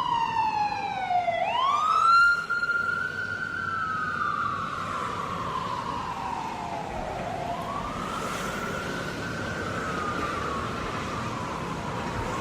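Ambulance siren sounding a slow wail. Its pitch slides down, sweeps quickly back up about a second and a half in, then falls slowly over several seconds and rises again near the end.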